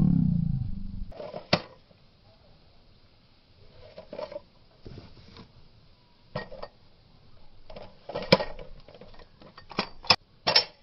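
A deep drawn-out sound falling in pitch fades out in the first second. Then a Polymer80 Glock 19-pattern pistol is handled: a series of sharp metallic clicks and clacks of the magazine and slide being worked, the loudest about eight seconds in and several quick ones near the end as the slide is racked.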